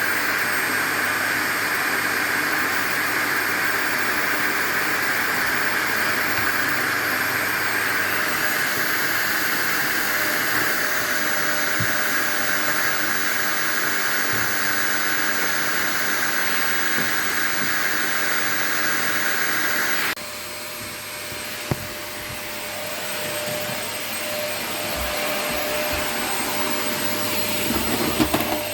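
Vacuum cleaner running steadily with a strong hiss. About twenty seconds in it abruptly drops to a quieter, lower sound with a steady hum, followed by a single knock and a few clicks near the end.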